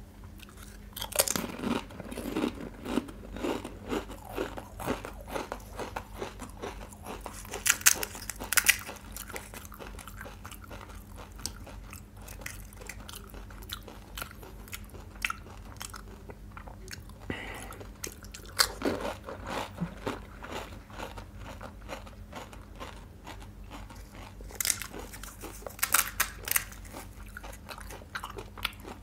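Close-miked biting and chewing of crisp, hollow pani puri shells, with bursts of loud crunches about a second in, around 8 seconds, around 19 seconds and again near the end, and softer chewing between.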